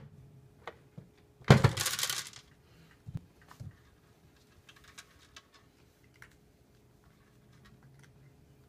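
Cat knocking at a plastic automatic feeder. About a second and a half in there is a thump and a clatter of about a second as loose dry kibble is knocked down into the tray. A couple of knocks follow, then light scattered clicks as the cat eats from the tray.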